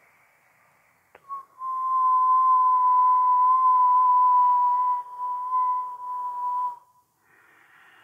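A person whistling one long, steady note through the lips, with the rush of breath heard around it. It starts about a second in after a faint click, dips briefly about 5 s in, and stops shortly before the end.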